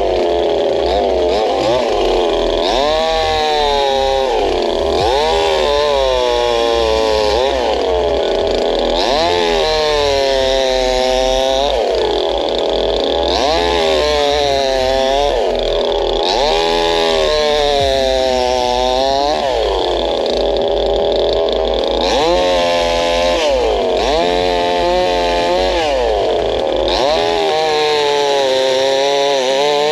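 Unbranded gas chainsaw with a 22-inch bar running at high revs while cutting wood, its engine speed rising and falling over and over, about every two seconds.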